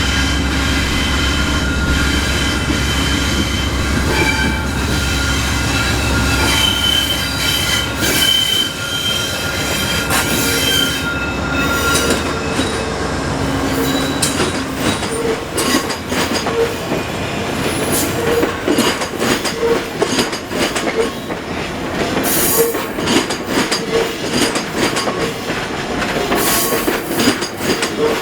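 A diesel-hauled train passing. The locomotive's deep engine rumble is heard for the first several seconds, with a steady squeal of the wheels on the rails. After that the cars roll by, wheels clicking over the rail joints, and the clicks come thick and fast through the second half.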